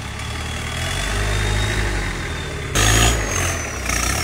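Off-road competition 4x4's engine running and picking up, with two sudden loud bursts of rushing noise near the end and a faint high whine sliding slowly in pitch.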